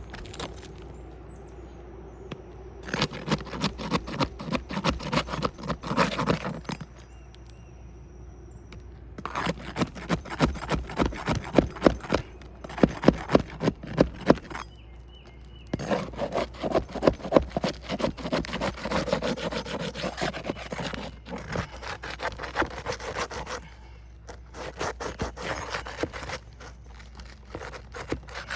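A steel roof snake (shingle ripper) scraping and rasping under asphalt shingles in bouts of rapid strokes with short pauses, prying the nails loose. The gritty rasp of the shingle granules scraping off is part of it.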